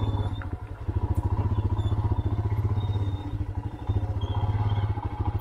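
Royal Enfield Himalayan's single-cylinder engine running as the motorcycle is ridden, a fast, even thumping beat that dips briefly about half a second in and again near four seconds.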